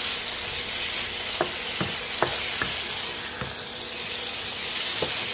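Stir-fry sizzling steadily in a nonstick frying pan while a wooden spatula stirs pieces of fried fish and bell peppers, with half a dozen short scrapes and taps of the spatula against the pan.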